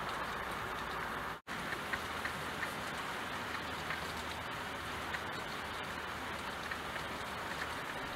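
Steady rain falling on a window pane, an even hiss with scattered ticks of single drops. The sound cuts out completely for an instant about a second and a half in.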